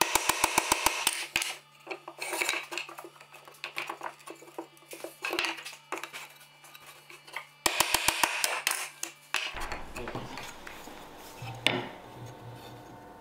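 A hammer rapidly tapping the steel corner chisel set into the corner of a pine frame: two quick runs of sharp metallic taps, one at the start and one about eight seconds in.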